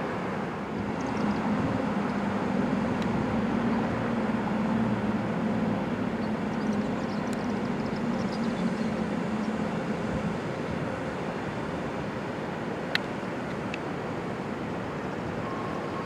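Federal Signal STL-10 electromechanical siren at the bottom of its wind-down: a low tone sagging slowly in pitch and dying away about ten seconds in, over a steady wash of city noise. A single sharp click comes near the end.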